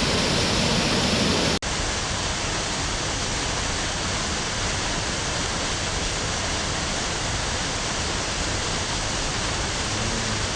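Steady, dense rushing of a small waterfall pouring into its pool, with a momentary dip about a second and a half in.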